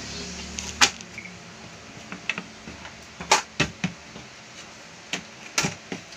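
Sheet-metal top cover of a Dahua DVR knocking and clicking against the recorder's chassis as it is handled and lifted off: about eight sharp knocks at irregular intervals, the loudest a little over three seconds in.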